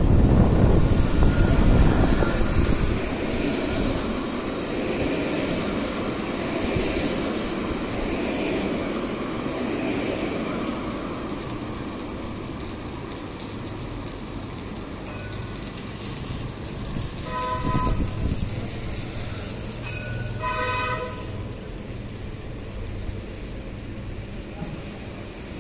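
Light-rail tram rumbling past close by on wet street track at first, fading into a steady hiss of rain on the paving. Over halfway through, two short horn toots come about three seconds apart.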